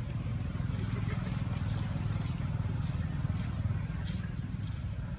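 A steady low engine rumble, like a motor vehicle idling nearby, with a few faint clicks over it.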